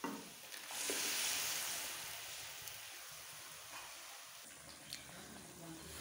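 Tomato puree poured into a steel pan of hot bubbling liquid, sizzling hardest about a second in, then settling into a steadier sizzle. A few sharp clicks of a steel spoon against the pan near the end.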